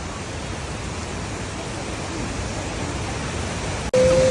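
Steady rushing noise of a large waterfall close by. Near the end, after an abrupt break, a loud held voice call begins on one note.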